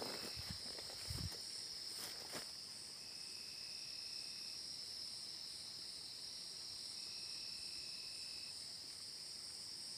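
Steady high-pitched chorus of night insects, with a few brief rustling steps through grass in the first couple of seconds. Twice, a fainter lower note holds for about a second and a half.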